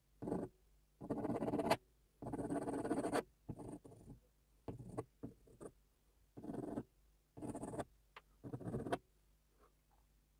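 Pencil lead scratching across toned drawing paper in a series of strokes, some short flicks and some drawn out for about a second, with brief pauses between them.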